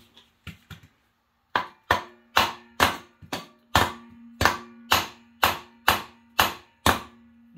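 About a dozen hammer blows on metal parts of a small Honda engine, roughly two a second, each ringing briefly, with a low metallic ring that hangs on between strikes.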